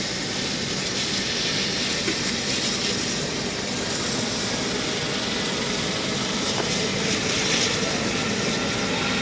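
Medical helicopter's turbine engine and rotor running steadily, a constant whine and whoosh that neither rises nor falls.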